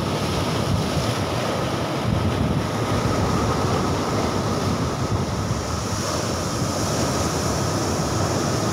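Sea surf breaking and washing over a rocky shore, with wind buffeting the microphone: a steady, unbroken wash of noise.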